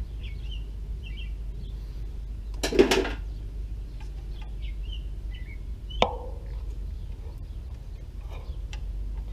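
Handling sounds at an outdoor electrical disconnect box while a ground wire is fitted: a short clatter about three seconds in and a sharp click with a brief ring about six seconds in. Birds chirp over a low steady rumble.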